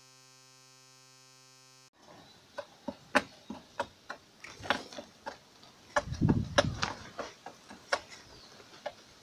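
About two seconds of a steady buzzing tone that cuts off abruptly, then irregular clicks and knocks from hand work at plastic pipes in a trench, with a denser, louder clatter and low rumble about six to seven seconds in.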